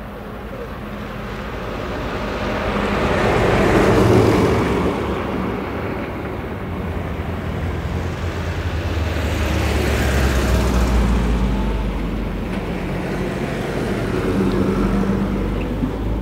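Night road traffic: vehicles pass one after another, each swelling and fading, the loudest about four seconds in and another around ten seconds. A low rumble builds underneath from about eight seconds on.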